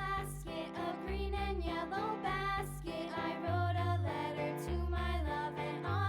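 Background music: a light, upbeat instrumental tune with a melody over a repeating bass line and regular cymbal strokes.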